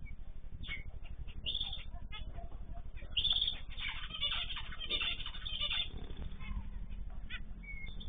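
Small cage birds in an aviary chirping and calling, busiest in the middle, over a steady low hum.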